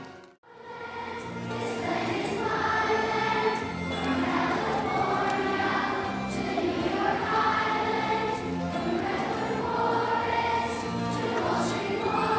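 A large choir of children singing a song together. The sound drops out for a moment just after the start, then the singing carries on.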